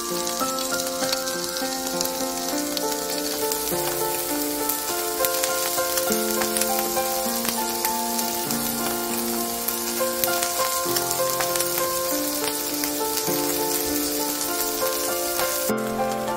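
Capelin (shishamo) frying in oil in a hot frying pan, a steady dense sizzle, with light background music playing a simple stepwise melody over it.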